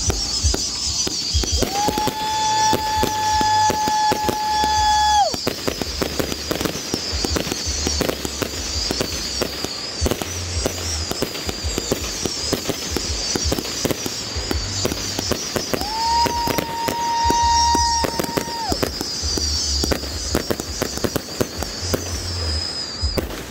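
A 260-shot firework cake firing without a break: a dense run of pops and bangs from shots launching and bursting. Twice, about two seconds in and again about sixteen seconds in, a steady whistling tone sounds over the shots for about three seconds.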